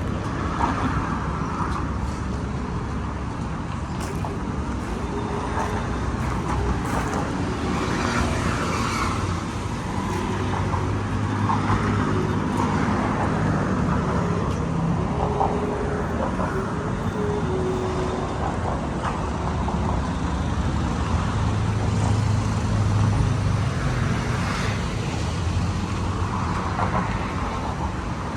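Road traffic: cars and other motor vehicles running and passing by in a steady hum that swells and fades.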